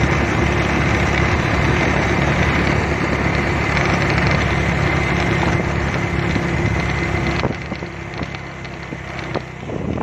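Small motorcycle engine running steadily on the move, under loud rushing wind and road noise. The engine note and the noise drop sharply about seven and a half seconds in.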